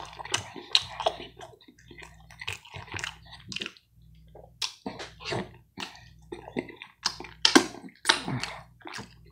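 Close-miked eating: a person chewing pizza with wet lip smacks and an irregular run of sharp mouth clicks, as fingers are licked and sucked.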